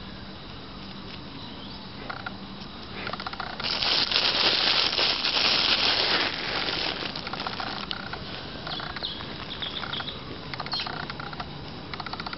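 Rustling and scratching in dry leaf litter and grass as a grey squirrel scrabbles about on the ground. It is loudest for a few seconds near the middle, then thins to lighter scattered crackles and clicks.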